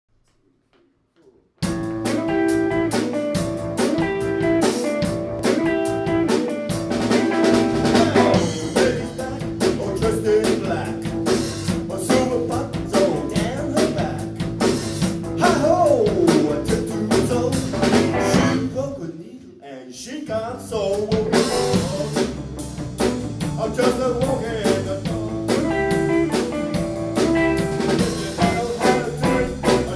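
Blues band playing live: electric guitar, electric bass and drum kit, with a male lead vocal. The band comes in sharply about a second and a half in, drops away briefly around twenty seconds in, then picks up again.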